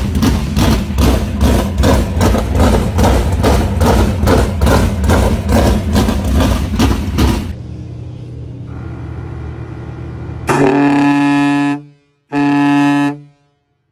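A loud pounding beat of about three or four strokes a second, then a steadier low rumble, then two blasts of a truck air horn, the first about a second and a half long and the second about a second, before the sound cuts off.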